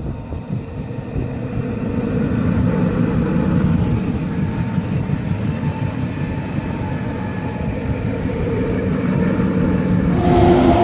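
An Alstom Régiolis regional electric multiple unit passing close by at speed: a steady rumble of wheels on rails, with a faint steady hum over it. About ten seconds in the sound cuts over to another train with a stronger, more tonal hum.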